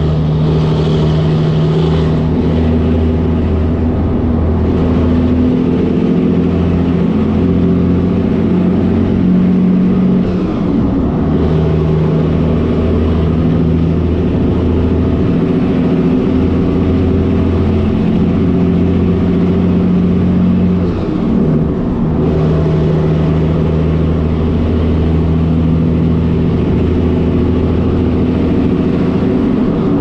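Cabover Peterbilt 362 diesel truck engine running steadily under way, a low drone with a steady hum. Twice, about ten seconds in and again near twenty-one seconds, the engine note briefly dips and comes back up.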